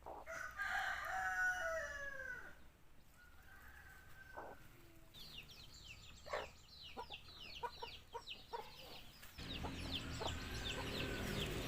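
A rooster crows once, a drawn-out call falling in pitch, followed after a pause by a run of quick, high chirps. The background noise rises suddenly near the end.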